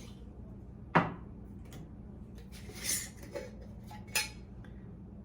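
Kitchen clatter from spice containers and dishes being handled while seasoning meat: a sharp clack about a second in, a short rustle around three seconds, and a click a little after four.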